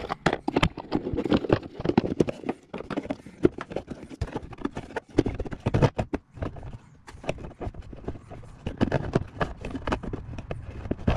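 Hard plastic lower airbox housing knocking and scraping against the surrounding parts as it is worked into place in a car's engine bay: a run of irregular clacks and knocks.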